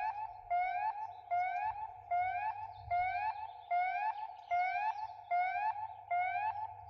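Electronic siren tone from a PA speaker warning system, sounded in a test. Short rising whoops repeat about every three-quarters of a second, each sweeping up and cutting off sharply.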